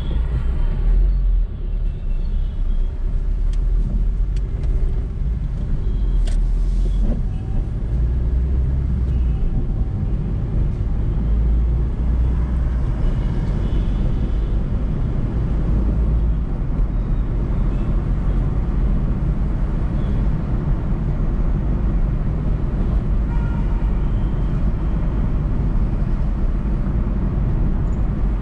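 A car driving along a city road: steady low rumble of road and engine noise.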